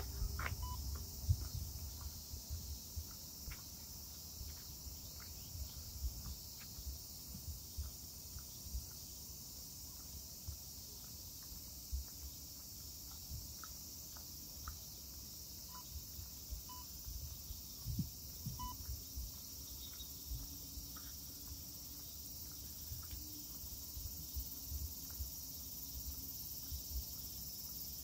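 A chorus of cicadas keeps up a steady, high-pitched summer buzz.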